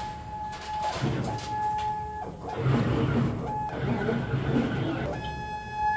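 Stepper motors of a Fast Cut Elite CNC plasma table whining as the gantry moves the torch through a dry run of the cut path, with the plasma arc off. The pitched whine starts and stops about four times as the moves change, over a low mechanical rumble.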